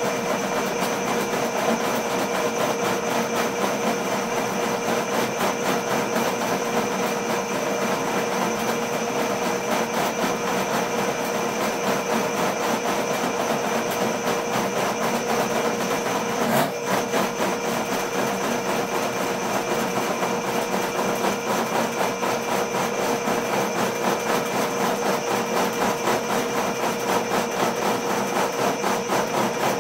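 Ridgid K-50 sectional drain machine running steadily, its electric motor spinning the cable down a floor drain to clear a root-clogged line. The sound dips briefly with a click about halfway through.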